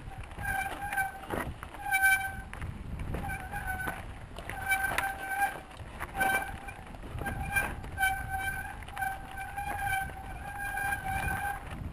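Bicycle brakes squealing in short, repeated bursts at one steady pitch as the bike descends a rough trail, over knocks and rattles from the bike bouncing on rocks and a low wind rumble on the microphone.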